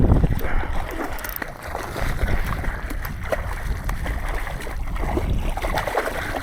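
Water splashing and sloshing, with scattered sharp clicks and knocks.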